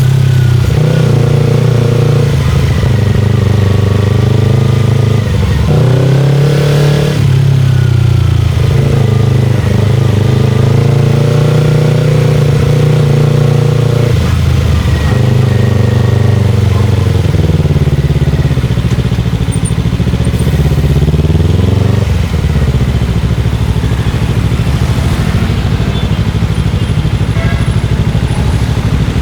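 Motorcycle engine running loud while riding. Its note climbs and falls, with brief drops about five, eight and fourteen seconds in, then holds a steadier, rougher note in the second half.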